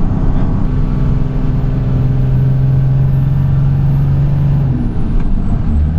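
First-generation Dodge truck's 12-valve Cummins diesel heard from inside the cab, running steadily under load on a steep climb. The engine note changes about five seconds in. A thin high whistle dips in pitch near the end and starts to rise again.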